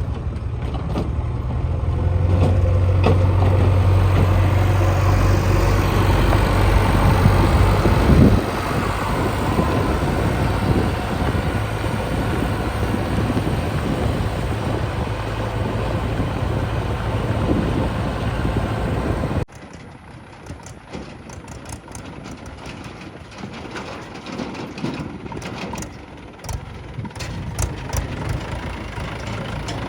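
Heavy diesel engine running steadily. Its note changes about eight seconds in, and about two-thirds through the sound cuts abruptly to a quieter engine with scattered knocks and clunks.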